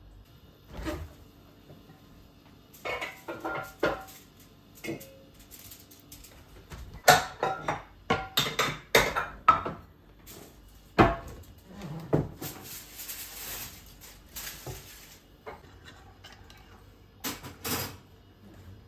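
Kitchen clatter: dishes and utensils being handled, knocking and clinking in irregular clusters, with a few seconds of steady hiss in the middle.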